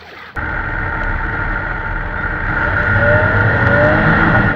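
Steady, loud running noise of a moving motor vehicle, starting abruptly a moment in, with a low rumble under it.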